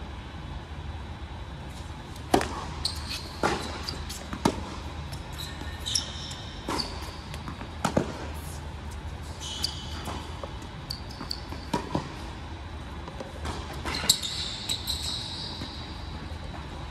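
Tennis rally on an indoor hard court: sharp racket strikes and ball bounces a second or so apart, with short high-pitched sneaker squeaks. A low steady hum runs underneath.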